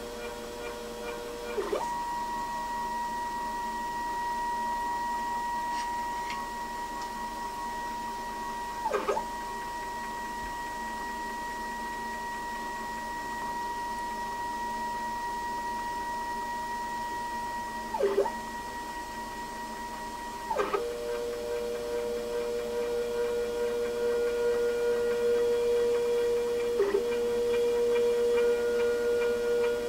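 Stepper motor driving a DIY CNC's Z-axis lead screw through an acetal lead nut, a steady whine whose pitch follows the step rate: a higher tone from about two seconds in until about two-thirds through, with short dips around nine and eighteen seconds, then a lower tone with brief dips near the end. At slow speeds this axis vibrates badly, a weakness of its design.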